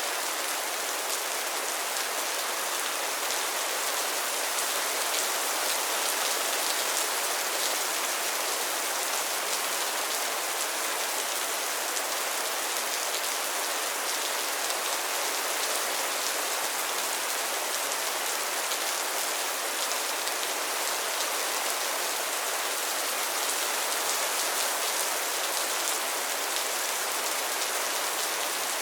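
Steady rain falling on a pond and its lily pads, a dense even patter of drops hitting water and leaves.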